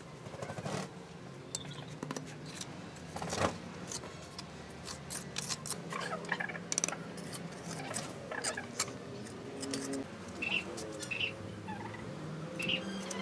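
Steel bricklaying trowel scraping and tapping wet cement mortar on red clay bricks as the bricks are buttered and pressed into place: an uneven run of short scrapes, knocks and clicks.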